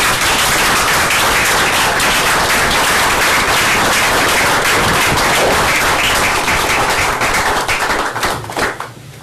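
Audience applauding, loud and steady, thinning to a few scattered claps and stopping near the end.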